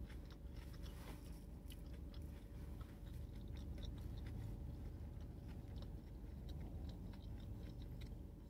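A person chewing a mouthful of McDonald's hash brown with her mouth closed: faint, irregular small crunches and wet clicks. A low steady hum sits underneath.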